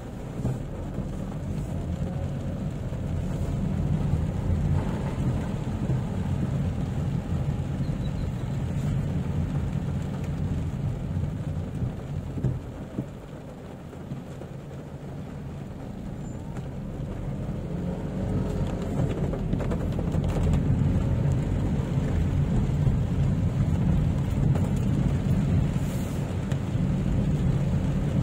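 Inside the cabin of a Toyota Wigo hatchback driving through heavy rain: a steady low rumble of engine and tyres on the wet road, with rain on the car body. It eases off briefly about halfway through, then grows louder again.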